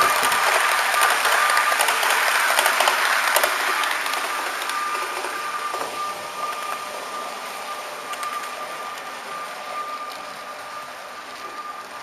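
HO-scale model trains running on the track: a steady rushing rattle of metal wheels on rails with a thin steady whine and scattered rail clicks. It is loudest at the start as another model train passes close alongside, then slowly fades as the train carrying the camera runs on.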